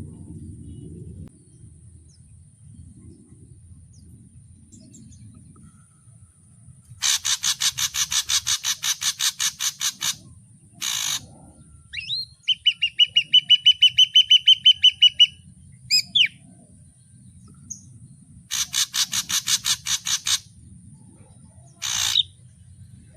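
Ashy drongo calling in varied phrases: two rapid series of pulsed notes, a fast even trill of repeated whistled notes in between, and a few single sharp notes.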